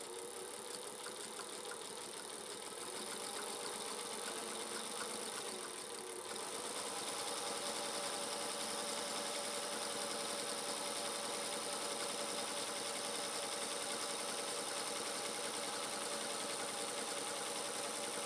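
Singer 221 Featherweight sewing machine running steadily as it stitches a seam, with a fast, even ticking from the needle mechanism. It eases briefly about six seconds in, then runs on a little louder.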